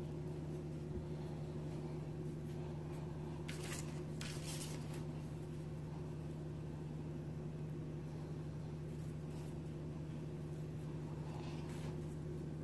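Steady low hum of room tone, with a few faint, brief rustles about four seconds in and again near the end.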